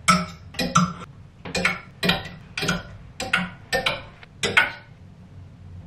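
Clothes hangers clicking against a closet rod as garments are hung up one after another: about a dozen sharp clicks, often in quick pairs, that stop about three-quarters of the way through.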